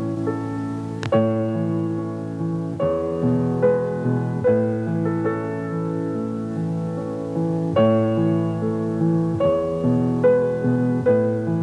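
Piano music playing a slow melody over held chords, with a single click about a second in.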